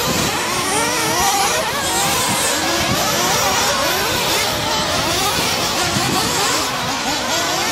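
Several radio-controlled off-road race trucks running on a dirt track, their small motors revving up and down over one another.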